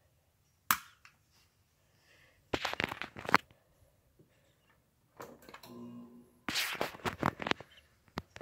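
A sharp click from a power strip's rocker switch about a second in. A little past the middle, the Dell E773c CRT monitor powers up with a low degaussing hum lasting about a second. Bursts of crackly noise come before and after the hum.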